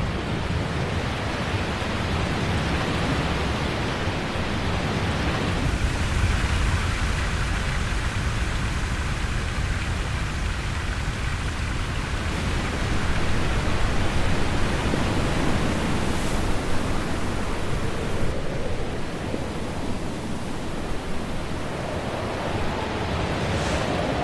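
Steady rushing of a waterfall: an even, unbroken wash of noise with a heavy low rumble underneath.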